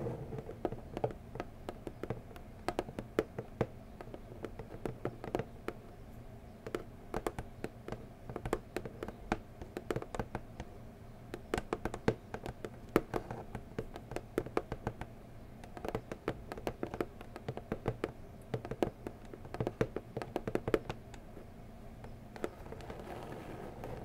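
Long fingernails tapping on a brown cardboard packing box, in quick irregular runs of sharp clicks with short pauses between them.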